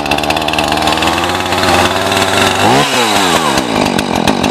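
Husqvarna 445E two-stroke chainsaw engine running just after its second, choke-off start, with a quick rev up and back down about three seconds in.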